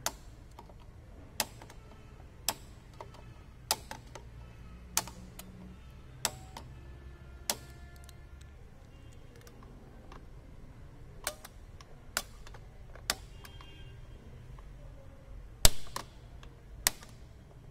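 Star-wheel adjuster of a Maruti Suzuki Wagon R's rear drum brake clicking as it is turned with a flat screwdriver to expand the brake shoes. The sharp metallic clicks come roughly once a second, pause for a few seconds midway, and the loudest comes near the end.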